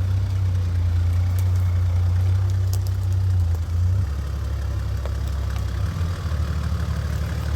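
Toyota Land Cruiser engine running at low revs as the 4x4 crawls over rough ground, a steady low rumble that shifts slightly in pitch about four seconds in.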